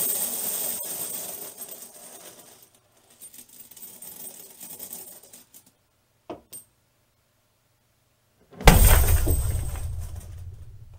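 Gold coins spilling out of a wooden chest onto a heap, a dense metallic clinking that dies away over the first few seconds into a few scattered clinks as the pile settles. Near the end, a sudden loud, deep thud with a low booming tail as the chest lid shuts.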